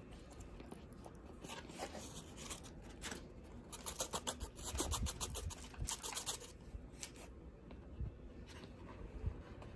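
Pokémon card booster packs being torn open and the cards handled: faint foil crinkling and card rustling in clusters, busiest in the middle.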